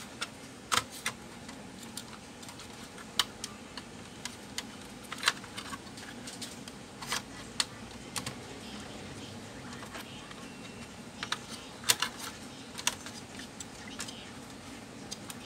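Irregular light clicks and taps, a couple of dozen spread unevenly, the sharpest about a second in and near twelve seconds, over a steady low hum: hands handling the parts of an opened laptop.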